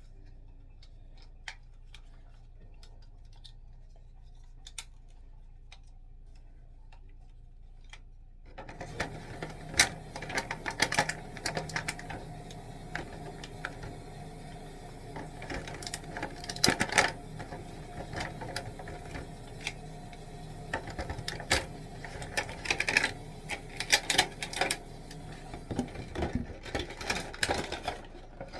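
Extendable phone tripod's plastic parts being handled, with irregular clicks and rattles starting about eight seconds in and going on until near the end.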